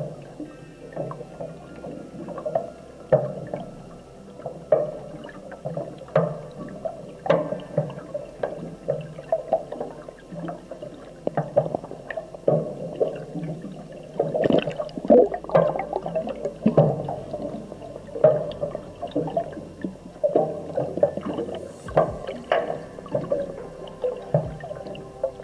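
Water heard underwater through a submerged camera's housing: a muffled, gurgling wash with frequent irregular soft knocks and clicks.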